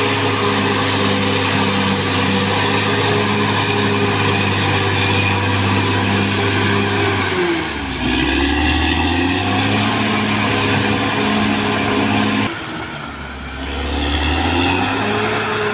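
Caterpillar D6R XL bulldozer's diesel engine running steadily. Its pitch sags about halfway through and climbs back, then drops again with a dip in loudness near the end before recovering.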